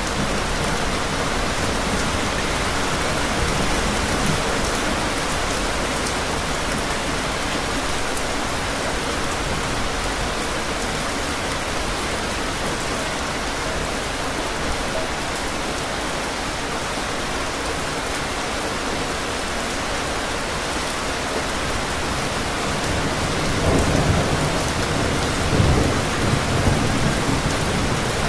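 Steady heavy rainfall. Thunder rumbles twice near the end, about 24 and 26 seconds in.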